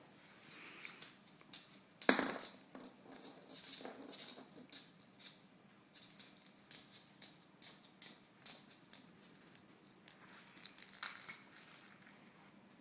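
A small toy jingling and rattling in short bursts as it is moved about. There is a sharp knock about two seconds in and a louder run of jingling near the end.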